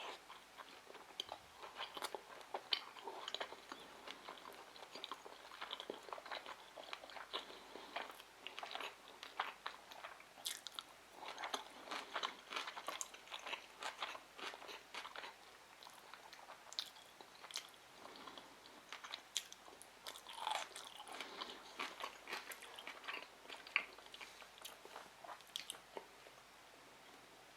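Close-up chewing and biting sounds of a person eating sushi rolls: a steady stream of small irregular wet clicks and crunches.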